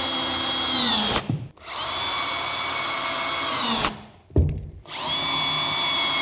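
Cordless drill-driver driving screws through cement backerboard into a timber floor: three runs of motor whine, each sagging slightly in pitch as the screw drives in, separated by short pauses. There is a single knock in the second pause.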